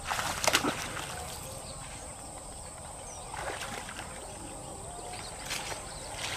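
A hooked snakehead thrashing at the water's surface, with a burst of sharp splashes about half a second in, then a few fainter splashes as it is reeled in.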